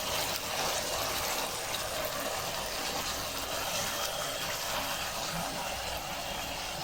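Lamb karahi sizzling and bubbling steadily in its pan, a continuous hiss. The sauce has reduced until the oil rises to the surface, the sign that the karahi is done.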